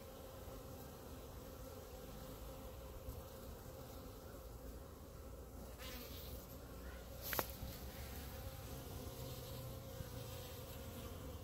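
Honeybees buzzing steadily around a hand, with one sharp click about seven seconds in.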